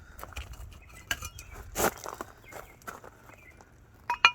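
A hammer knocking on a bent metal locomotive part as it is straightened by hand, with some scuffing between blows. Near the end come two sharp metallic strikes that ring briefly.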